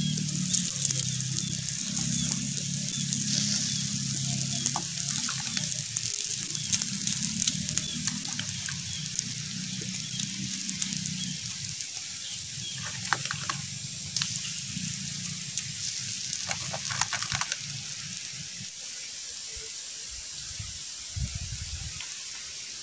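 Tilapia sizzling and crackling on a wire grill over charcoal as seasoned oil is brushed on. Soft background music with a bass line runs underneath and fades out past the middle.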